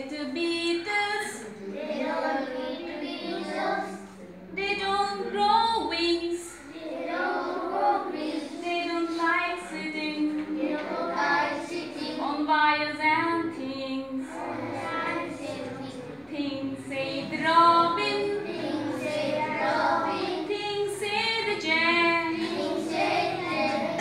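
A group of schoolchildren singing an English song in unison, with a woman's voice singing along.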